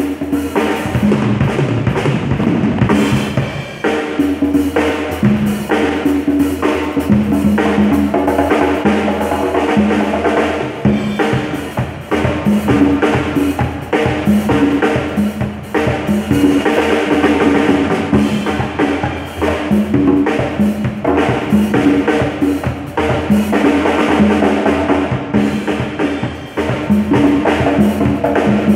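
A PDP drum kit and a pair of congas played together in a steady, driving groove: kick and snare from the kit under repeated pitched conga strokes, with no break.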